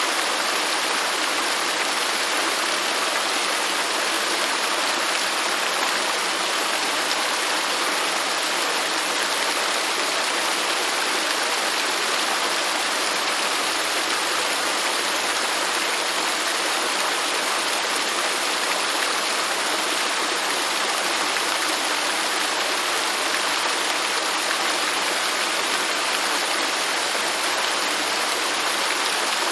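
Garden fountain: water falling and splashing into a basin, a steady, unchanging rush of running water.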